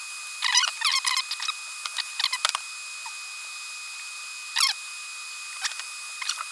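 Small clicks and scrapes of a hand tool bending a resistor lead and wrapping it around a switch's solder lug in an amplifier chassis. It comes in short bursts, heaviest in the first couple of seconds, then a single click about two-thirds of the way through and another near the end.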